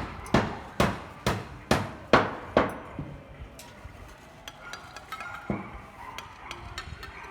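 Hand hammer striking in a steady rhythm, about two blows a second, that stops about two and a half seconds in. Lighter scattered clicks and knocks follow.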